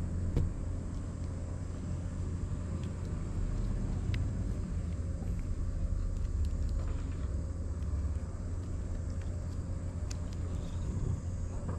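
Wind on the microphone: a steady low rumble, with a few faint ticks over it.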